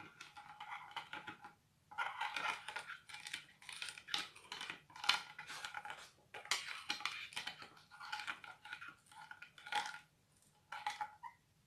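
A thin metal stick stirring a runny, bubbly slime-glue mixture in a glass baking dish, making dense wet, sticky clicks in bursts with a few short pauses.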